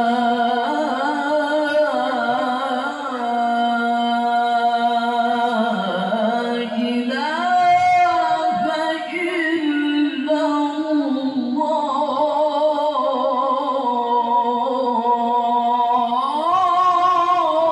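A male qari's voice, amplified through a microphone, sings one long, unbroken melodic Quran recitation phrase (tilawah). It has held notes with wavering ornamental turns and climbs higher near the end.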